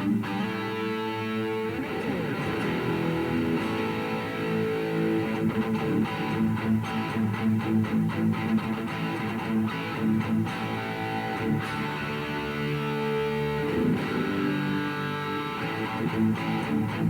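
Distorted electric guitar played through a Revv G3 preamp/distortion pedal into an amp. Held chords alternate with stretches of quick, repeated strums, with a sliding pitch change about two seconds in.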